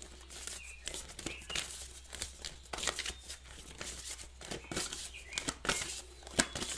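A deck of tarot cards shuffled by hand: a run of irregular short papery flicks and taps.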